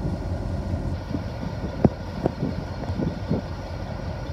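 Diesel-electric locomotive idling, a steady low engine rumble, with a sharp click a little under two seconds in and a fainter one just after.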